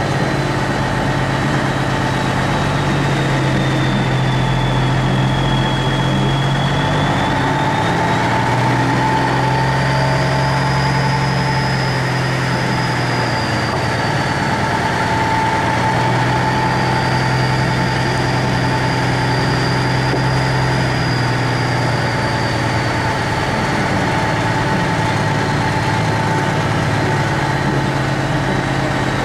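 Heavy truck's diesel engine running, heard inside the cab, its engine note stepping up and down in pitch several times as it works. A high whine rises and falls over it.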